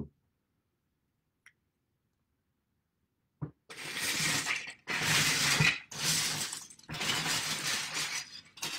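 Loose plastic Lego bricks clattering in a bin, in four or five rattling bursts that start about three and a half seconds in after a single click.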